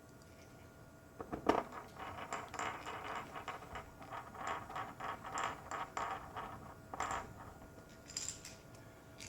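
Small metal laptop case screws clinking and rattling together as they are picked through and handled, a dense run of light clicks with one sharper click early on and a few more near the end.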